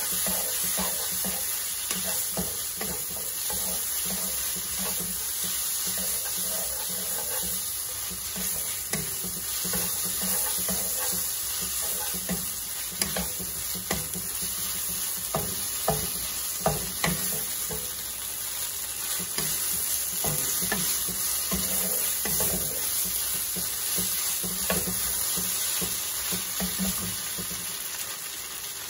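Shrimp sizzling in a granite-coated nonstick wok while a wooden spatula stirs them, scraping and knocking against the pan. There is a steady frying hiss throughout, with a run of sharper spatula knocks a little past the middle.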